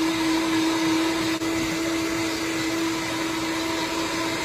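Vitamix A3500 blender running at its top speed of 10, a steady high-pitched whine over a rushing noise as it blends a fruit-and-ice smoothie.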